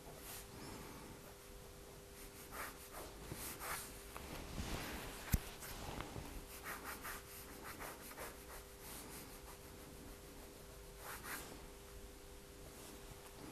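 A pen scratching across a sheet of paper in many short, quick sketching strokes, with a single sharp tap about five seconds in. A faint steady hum underneath.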